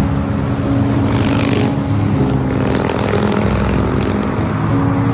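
Motorcycles running in a procession, a steady engine drone with a brief louder rush about a second in.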